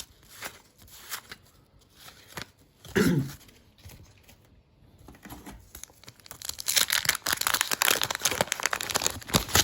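A baseball card wax pack being torn open, its paper wrapper tearing and crinkling for about three seconds near the end, after scattered soft clicks of cards being handled.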